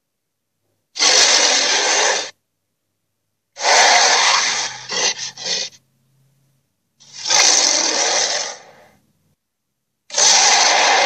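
Creature sound effects for an invented monster: a series of noisy vocal-like bursts, each one to two seconds long, cut apart by dead silence, with a further burst starting near the end.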